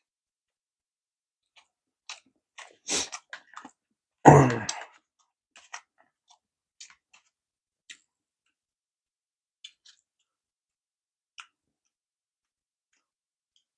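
A person chewing sushi into a close lapel microphone: scattered soft wet clicks and smacks of the mouth, with a louder, heavier burst about four seconds in.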